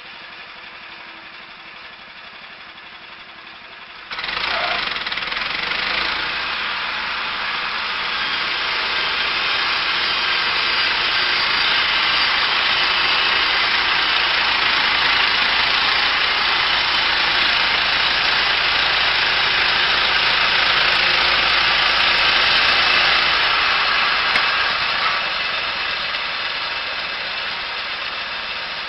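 Engine-driven heavy wood-processing machinery running steadily. The sound jumps abruptly much louder about four seconds in, stays loud and even, then eases off slightly near the end.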